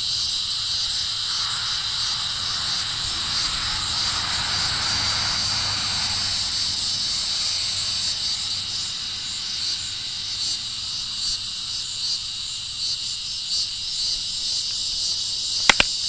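Resonant cicada (Tibicen resonans) calling without a break: a loud, high buzz that throbs in quick pulses. A few sharp clicks come just before the end.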